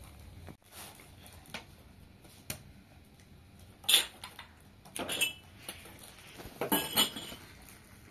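Dishes being handled: a metal teapot and tray clinking and clattering, in a few sharp knocks about halfway through and again near the end.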